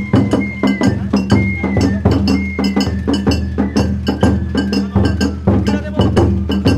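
Live ohayashi festival music played on a dashi float: a large barrel-shaped taiko drum beaten with sticks amid quick clacking and clinking percussion, several strikes a second, with a high flute melody held and sliding between notes over it.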